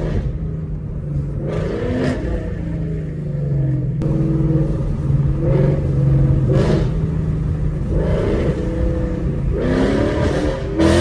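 Ford Mustang GT's 5.0 V8 breathing through freshly fitted Kooks long-tube headers, driven and revved on the road. The exhaust note rises in pitch in several short pulls, about one every two seconds, with a steady drone between them.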